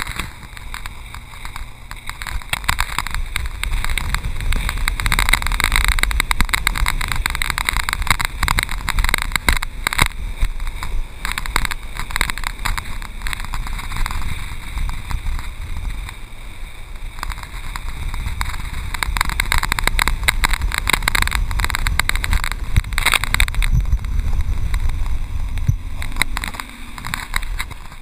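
Water rushing and splashing against an O'Brien inflatable towable tube pulled at speed across the wake, with wind buffeting the microphone. The spray comes in louder surges with many sharp slaps.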